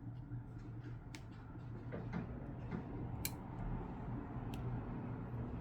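A few small, sharp, scattered clicks from handling the opened iPhone 12 while its battery connector is pressed back on, over a steady low hum.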